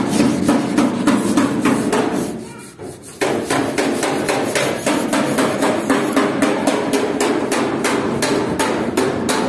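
Rapid, evenly spaced strokes of hand work on a truck's metal body panel, about four or five a second, each with a hard knock. The strokes fade briefly about two seconds in, then resume.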